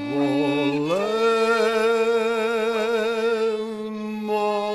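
A man singing a serenade in Serbian: he sings the word "zavole", rises in pitch about a second in, and holds one long note with vibrato until near the end.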